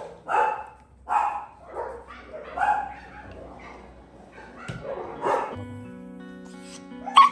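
A dog barking in a string of short barks, roughly one a second, then background music coming in about six seconds in.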